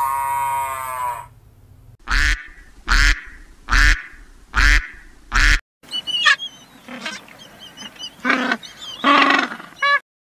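A rooster's crow ends about a second in, then ducks quack: five loud quacks at an even pace, then, after a sudden break, more quacking with small birds chirping faintly.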